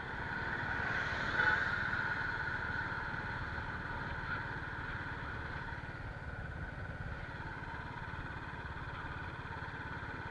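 Royal Enfield Thunderbird's single-cylinder engine running steadily, with a fast low pulse and a slight swell about a second in.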